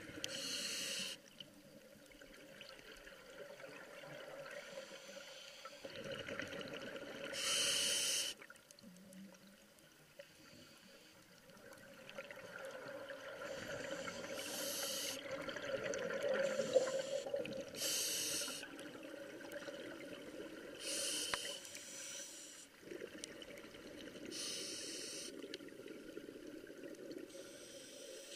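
Scuba regulator breathing underwater: six short, sharp hisses of inhalation a few seconds apart, with the bubbling of exhaled air between them.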